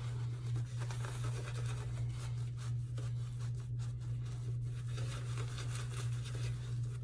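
Synthetic-knot shaving brush scrubbing thick, slick soap lather over skin, a continuous wet scratchy rustle of quick strokes, over a steady low hum.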